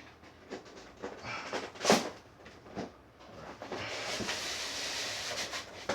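Cardboard keyboard packaging being handled: a few light knocks and a sharp thump about two seconds in, then about two seconds of steady scraping as cardboard slides against cardboard.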